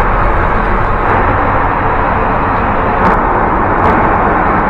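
Steady rushing in-flight cabin noise of an Airbus A380, with two light clicks late on.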